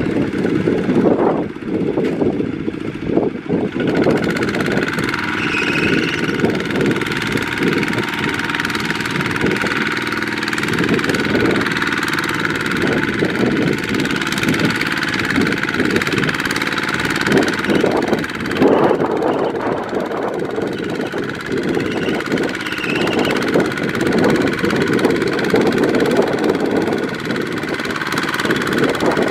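Kubota ZT155 walking tractor's single-cylinder diesel engine running steadily with a rapid knocking beat, working under load as the rice-laden tractor struggles through deep mud.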